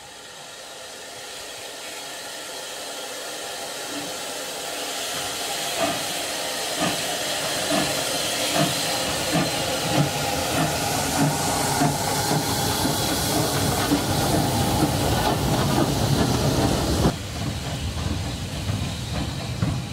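SE&CR C class 0-6-0 steam locomotive No. 592 starting away: a hiss of steam that builds up, then exhaust beats come in about six seconds in, at roughly one and a half a second and slowly quickening as it gets under way. Near the end it cuts abruptly to a quieter, steady train sound.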